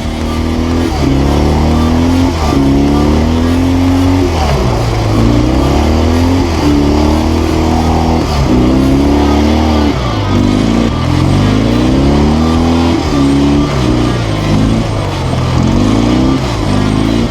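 Motorcycle engine revving up and dropping back over and over, its pitch climbing and then falling every second or two, as in hard acceleration through the gears on rough ground.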